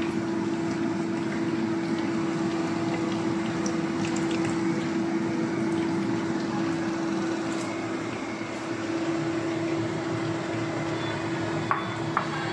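Steady kitchen background noise: a constant hum under an even hiss, with two light clicks near the end.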